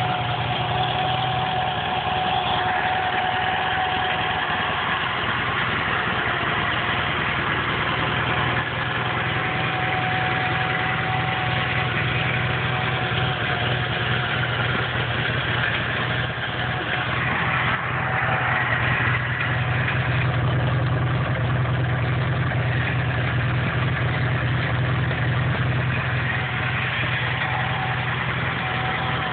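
Sears SS/16 garden tractor's Onan twin-cylinder engine idling steadily just after starting, a little louder for a stretch past the middle.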